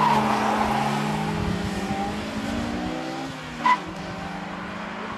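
Honda S2000 and Honda CRX launching side by side from a standing start, the end of a tyre squeal at the very start, then both engines revving hard and fading as the cars pull away. A short sharp chirp comes about three and a half seconds in.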